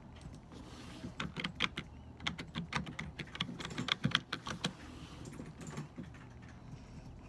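Typing on a computer keyboard: a quick run of key clicks lasting about four seconds, then a few scattered keystrokes.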